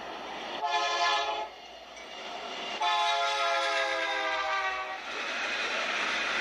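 Air horn of a BNSF Dash-9 freight locomotive sounding two blasts, a short one just under a second in and a longer one of about two seconds in the middle. After that comes the steady rumble of the heavy freight train passing close by.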